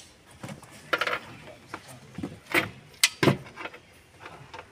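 Scattered metallic clicks and knocks as hand tools and seat-mounting bolts are handled at a car seat's metal rails and bracket, the two loudest close together about three seconds in.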